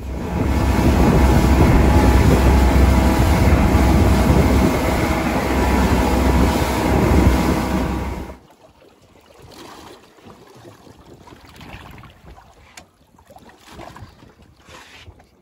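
Evinrude 90 outboard motor driving the boat at speed, its steady drone mixed with rushing wake water and wind buffeting the microphone. The sound drops away abruptly about eight seconds in, leaving only a faint background.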